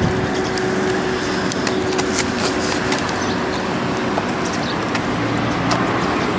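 Steady outdoor street ambience: a constant rushing noise with a low steady hum that fades out about halfway through, and scattered faint clicks.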